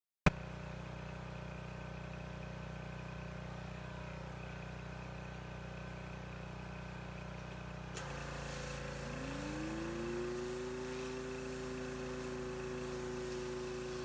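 Pressure washer running with a steady hum. After a break about eight seconds in, a higher tone rises over a couple of seconds and then holds steady, as the machine comes up to speed.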